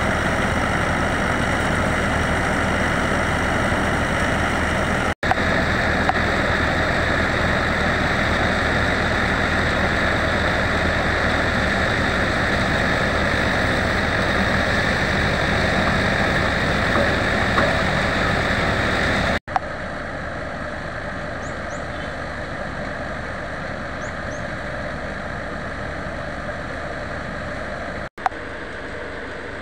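Tractor-driven paddy thresher running under load: the tractor's diesel engine and the whirring threshing drum make one loud, steady mechanical noise. A little past halfway it drops to a lower, more distant level.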